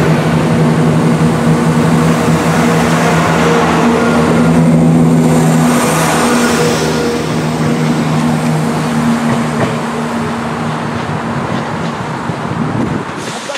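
Class 171 Turbostar diesel multiple unit pulling out of the station, its underfloor diesel engines giving a steady drone over the rumble of wheels on rail. The sound slowly fades as the train draws away.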